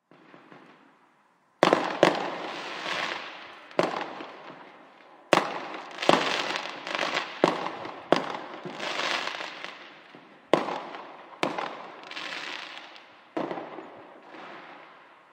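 Fireworks going off: about eleven sharp bangs spread over the stretch, each followed by a crackling shower that fades away.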